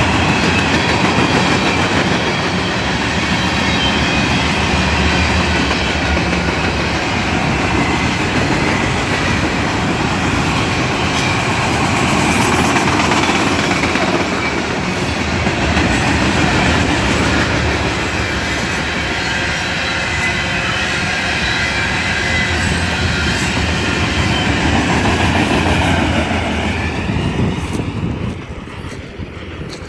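Freight train of auto rack cars rolling past at speed: steady loud rumble of wheels on rail, with clacking and a faint high squeal, dropping off near the end.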